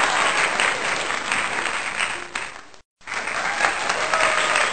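Crowd clapping and cheering, dense and steady, that cuts out abruptly a little under three seconds in and starts again a moment later.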